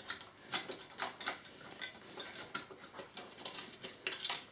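Metal retention clip of a CPU heatsink being worked onto the plastic socket bracket: a run of sharp clicks, scrapes and taps, the loudest right at the start and a dense cluster near the end.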